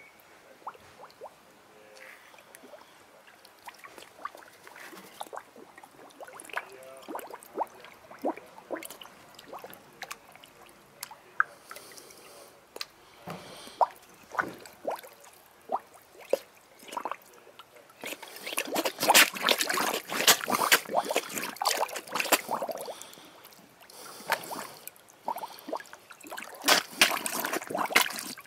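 Koi carp feeding from a hand at the pond surface: scattered wet pops, smacks and slurps as the fish suck at the food and water, turning to a dense stretch of splashing and sucking in the later part as they crowd in, and again near the end.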